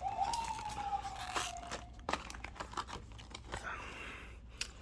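Plastic shrink wrap and a cardboard box being torn open and crinkled, with many sharp crackles and snaps. A thin steady squeal runs through the first two seconds.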